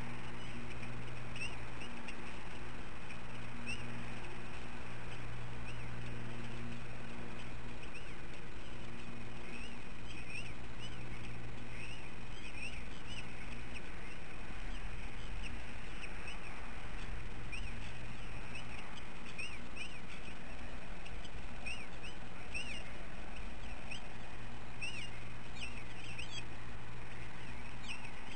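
Bald eaglets in the nest giving short, high chirps, scattered at first and more frequent in the second half. A low steady hum comes and goes underneath.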